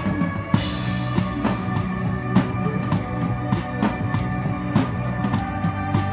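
Live band playing a song, with a steady drum-kit beat over sustained instrumental notes and a cymbal crash about half a second in.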